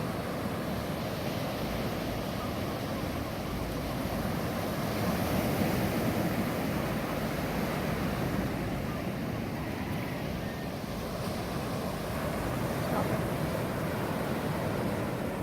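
Ocean surf washing on a beach: a continuous rush of breaking waves, swelling louder about a third of the way in and again near the end.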